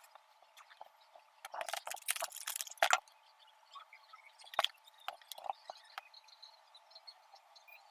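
Small clicks, taps and scraping as the parts of an opened smartphone are handled and fitted back together. A busy run of rattling clicks comes about one and a half to three seconds in and ends in a sharp click, followed by a few single taps.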